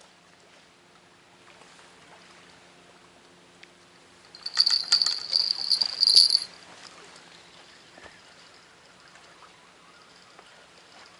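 A rapid, high jingling rattle lasting about two seconds, a few seconds in, over faint background noise.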